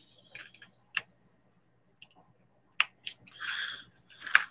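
Hands handling small objects and packaging: scattered sharp clicks and taps, with a short rustle about three and a half seconds in.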